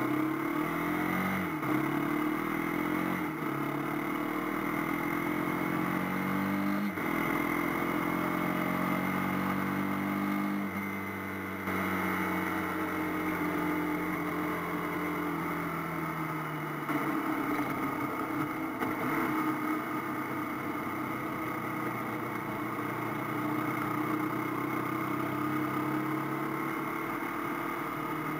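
AKT TT 250 Adventour motorcycle engine accelerating through the gears, its pitch climbing and dropping back at each upshift for the first dozen seconds, then running at a steadier cruising speed.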